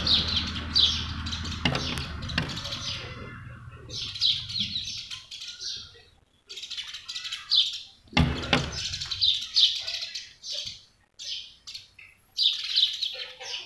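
House sparrows chirping close up in repeated bursts of quick chirps with short pauses between them. A low hum fades out over the first few seconds, and there is a single knock about eight seconds in.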